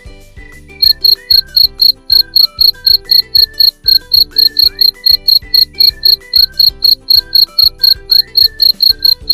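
Cricket chirping: a steady, loud train of short, high chirps, about four to five a second, starting about a second in.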